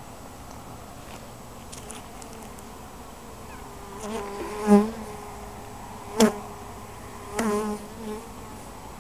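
Honeybees buzzing around an opened hive. Single bees fly close past the microphone with a louder pitched buzz about halfway through and again near the end, and there is one sharp tap a little after the first pass.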